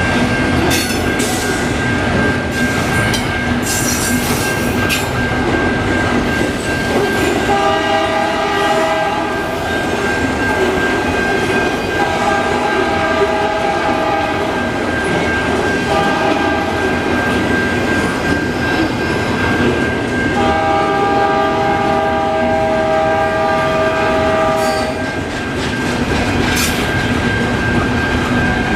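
Diesel freight locomotive's multi-chime air horn sounding the grade-crossing signal, long, long, short, long, over the steady rumble and wheel clatter of a slow-moving intermodal container train.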